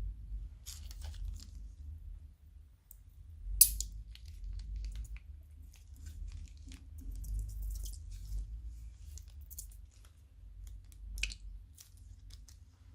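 Crunchy slime being handled and squeezed, making scattered crackles and crunches. The sharpest crackle comes about three and a half seconds in, and another near eleven seconds.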